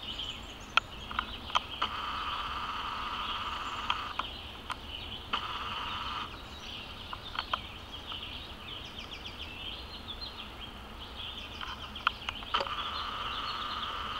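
Woodland wildlife: a steady high buzz with bird chirps over it, and a lower trill that runs for about five seconds, stops, and starts again near the end. A few sharp clicks scattered through.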